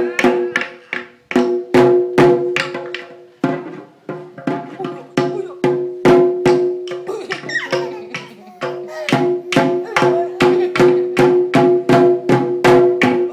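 A baby beating a large hide-headed drum with two wooden sticks: quick, uneven strikes, each with a ringing low tone, easing off briefly about seven seconds in.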